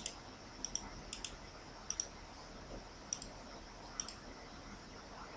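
Computer mouse button clicks: six sharp clicks over about four seconds, most heard as a quick pair of ticks, over a faint steady hiss.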